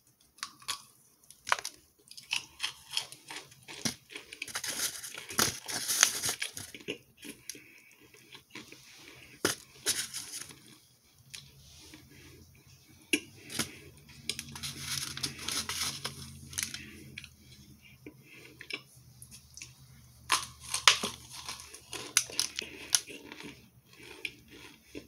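Dry, chalky white clay chunks being crunched and crumbled, in repeated bursts of crisp crackling and sharp clicks. A low steady hum sits under the middle stretch.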